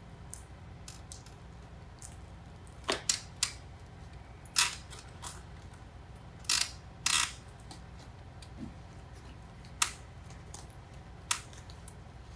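Scattered short crinkles and scuffs of split-backed airtight tape (pro clima Tescon Profil) and its paper backing being handled and pressed by hand onto a membrane around a timber joist end. They come in small clusters about three, four and a half and seven seconds in, with single ones later.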